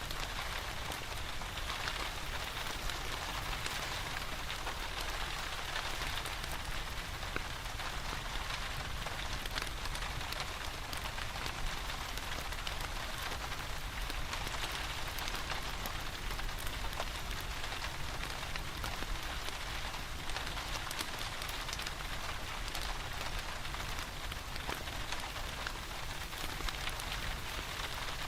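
Steady rain falling, mixed with the fine crackle of a wood fire in a fireplace.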